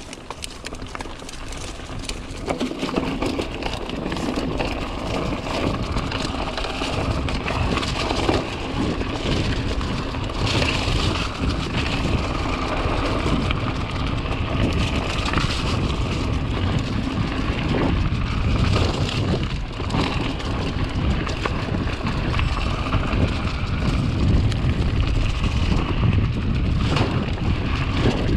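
2018 Giant Stance 2 full-suspension mountain bike riding a dirt trail: tyres rolling over dirt and rocks, with short rattles and knocks over bumps, and wind rumbling on the microphone. It gets louder over the first few seconds as the bike picks up speed.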